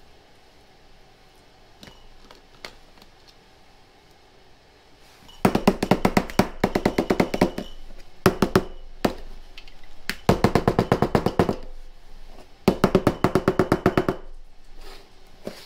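Glass mason jars packed with raw chicken being shaken down to settle the meat, knocking rapidly against the countertop. It comes in four bursts of a second or two each, about nine knocks a second, starting about five seconds in.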